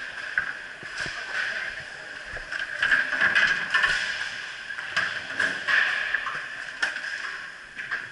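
Indistinct rink hubbub with scattered knocks and clatter, about four sharp knocks spread through it.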